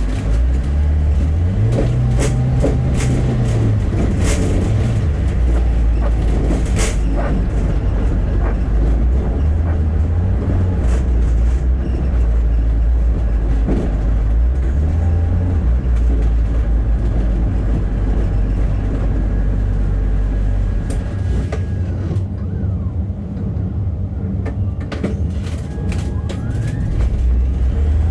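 Bus engine heard from inside the cabin, pulling away and going up through the gears, its low note rising and dropping several times, with rattles and knocks from the bodywork. The engine eases off a little after two-thirds of the way in, then climbs again near the end.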